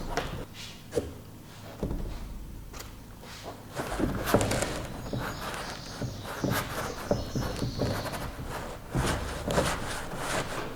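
Irregular knocks, clicks and clatter of hand work in a garage: a series of scattered strikes at uneven gaps, with some louder clunks about four seconds in and near the end.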